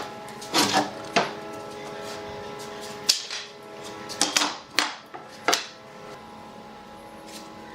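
Background music with held notes, over which come about seven short, sharp knocks at irregular spacing, the sounds of hand work on pallet wood.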